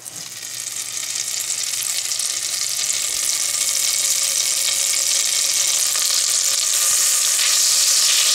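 Butter sizzling as it melts in a hot stainless steel pot. The hiss grows louder over the first few seconds, then holds steady, and near the end the melting butter is pushed around with a spoon.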